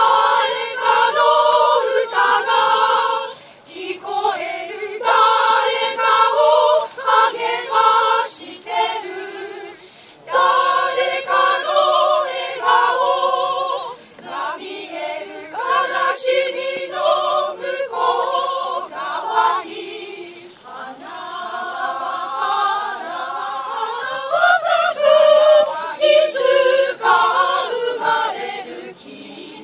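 A small choir singing together in long phrases, with short pauses for breath between them.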